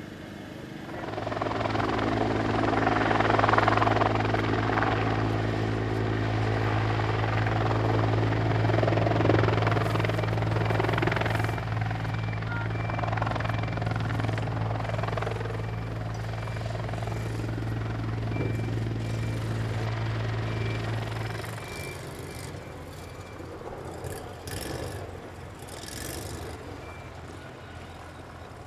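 Ishikawa Prefecture fire and disaster-prevention helicopter running: the rotor and engine noise swells about a second in and holds steady with a low hum. About three-quarters of the way through, the hum drops out and the noise fades.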